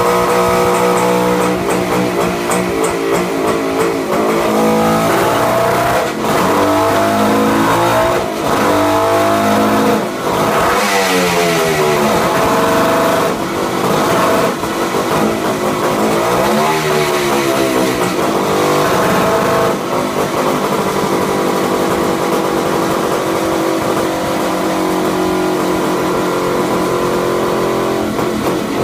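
Suzuki GT500 two-stroke twin revving up and down through its range under load on a dyno, with several rising and falling sweeps in pitch and brief drops in between. The uploader says the engine is fuelling too lean at the top end, with pilot jets that are too small.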